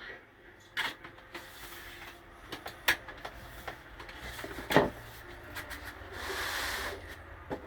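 Scattered clicks and knocks from handling a cassette tape deck's mechanism, the loudest a knock a little before five seconds in, with a short rubbing hiss about six seconds in, over a steady low hum.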